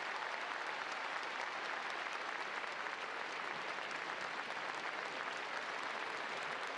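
Steady applause from a large audience of many people clapping together in a big hall.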